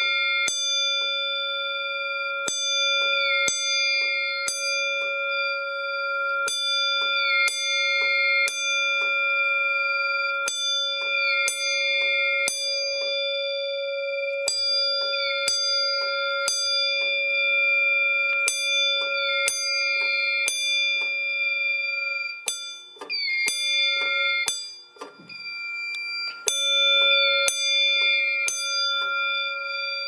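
Single-stroke fire alarm bell sounding the temporal code-3 evacuation pattern: three strikes about a second apart, then a pause, repeating about every four seconds. Each strike rings on between strokes. This is the alarm signal of a fire drill started from the panel.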